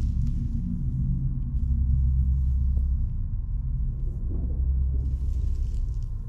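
A low, steady rumbling drone.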